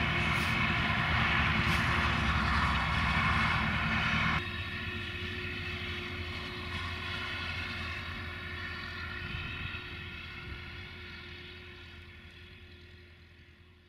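UTB U650 tractor's four-cylinder diesel engine running steadily under load while pulling a plough. About four seconds in the sound drops abruptly to a quieter, more distant engine note that slowly fades away.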